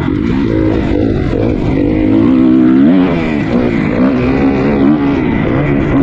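Motocross bike engine revving up and down repeatedly as the throttle is opened and closed on the track.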